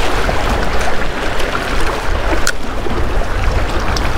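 Wind buffeting the camera microphone over water splashing against granite jetty rocks, with a sharp click about two and a half seconds in.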